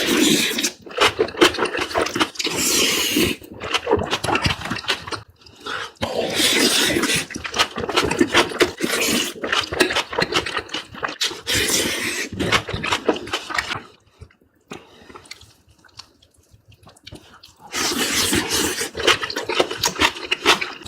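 Close-miked eating sounds: wet chewing and slurping of spicy food, dense with small mouth clicks. The sound comes in long stretches and eases off for a few seconds about two-thirds of the way through.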